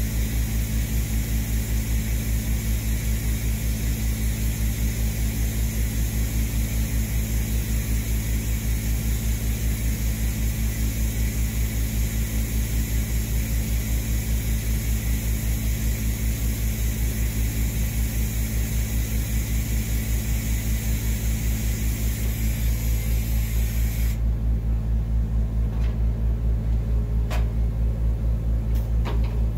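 Electric welding arc hissing steadily on 8-inch stainless steel pipe, cutting off abruptly about six seconds before the end as the weld stops. A steady low pulsing hum runs underneath, and a couple of light clicks follow after the arc stops.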